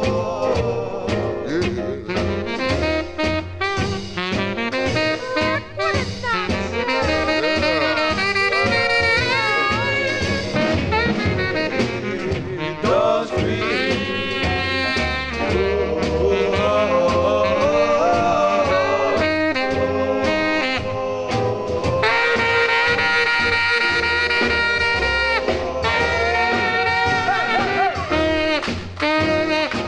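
1950s rhythm-and-blues record transferred from an original 45 rpm single, playing an instrumental break: a saxophone solo over the band's backing.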